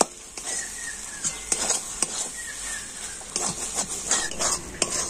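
Metal spatula stirring and scraping grated raw papaya around an aluminium wok, in a run of irregular scrapes and clinks against the pan.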